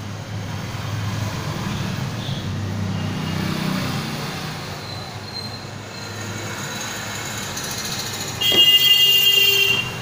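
Road traffic running past with a low engine rumble, then a vehicle horn sounding once for a little over a second near the end.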